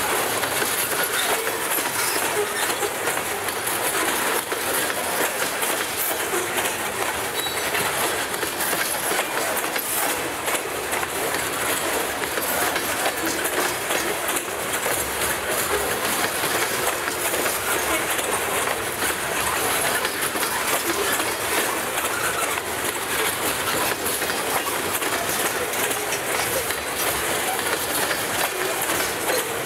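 A freight train's loaded grain hopper cars rolling past, their steel wheels making a steady noise on the rails, dotted with many quick clicks.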